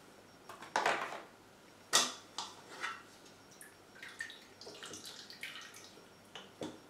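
Wet tea bags being pressed out with a spatula against the stainless-steel bowl of a Krups Prep and Cook kitchen machine and lifted out dripping. There are a few short, sharp sounds, the loudest about two seconds in, followed by lighter clicks and drips.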